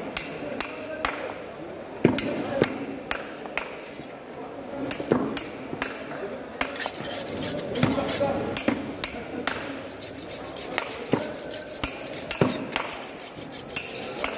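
Sharp knocks of a large fish knife being driven through a barracuda's body and backbone into a wooden cutting board, chopping it into steaks. The knocks come irregularly, in short runs of two to four.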